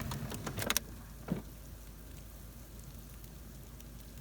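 Rain and sleet mix falling, a faint steady hiss with scattered tiny ticks. A few sharp clicks come in the first second.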